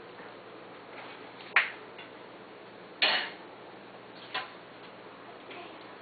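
Sharp taps and clicks as a kitten bats at a wand toy on fabric: three short knocks about a second and a half apart, the first the loudest.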